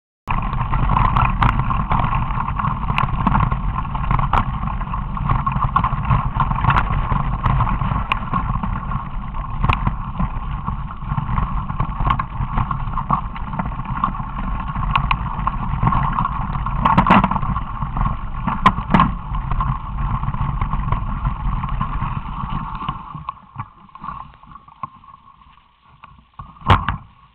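Mountain bike riding noise picked up by an on-board camera: a steady rumble with rattling and frequent sharp knocks from the bike over rough trail. It fades out about 23 seconds in, with a couple of sharp knocks near the end.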